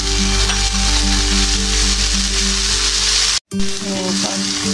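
Chopped onion, garlic and tomato sizzling as they sauté in hot oil in a wok, a steady frying hiss, with background music playing over it. The sound drops out for an instant about three and a half seconds in.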